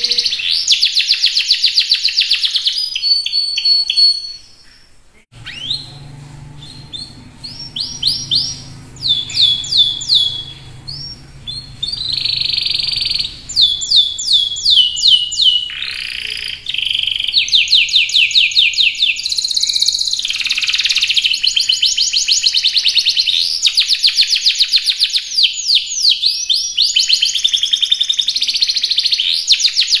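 Domestic canary singing at full voice: long, fast, high-pitched trills and rolls alternating with runs of quick repeated falling notes, broken by a short pause about four seconds in.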